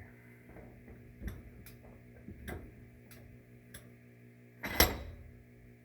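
Metal clicks from a steel bench vise being worked to press a roll pin into a gear, a handful of light ticks and then one much louder sharp clank just under five seconds in.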